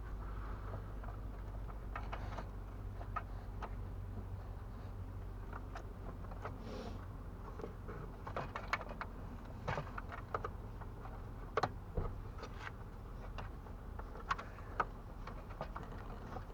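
Scattered light clicks and knocks of plastic dash parts being handled and pressed into place while a headlight switch bracket is fitted, over a steady low hum.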